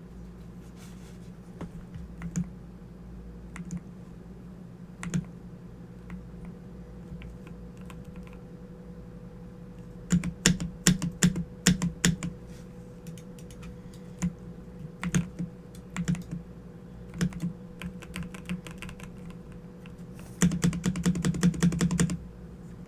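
Keystrokes on a Corsair computer keyboard: single key presses at first, a quick flurry of keystrokes about halfway through, scattered presses after that, and a dense run of fast typing near the end.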